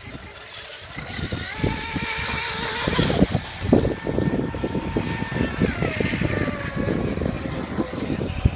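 Brushless electric motors of RC speedboats whining at speed. The high whine climbs about a second in and drops in pitch about two-thirds of the way through, over an irregular low rumble.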